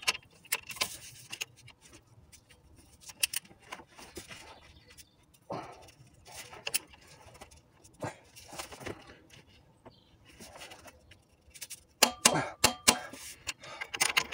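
Intermittent metallic clicks, taps and clinks of hand tools and parts being handled at the timing end of a 1.3 Multijet diesel engine, with a quick run of clicks near the end.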